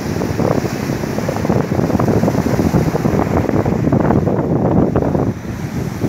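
Wind buffeting the microphone over the wash of sea surf, a dense rushing roar that briefly eases about five seconds in.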